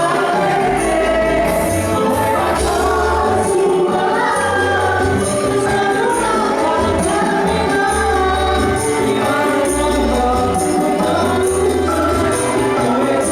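A song with several voices singing, over a bass line and a steady beat of high percussion strokes.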